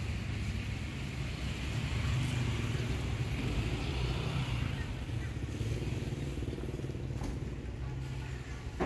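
A vehicle engine running steadily, a low rumble with a faint hiss over it.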